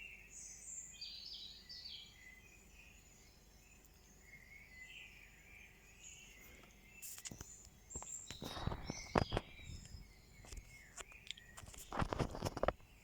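Early-morning dawn chorus: several songbirds singing and chirping, faint. About seven seconds in, a series of louder knocks and rustling handling noise begins, loudest near the end, with the birdsong still going under it.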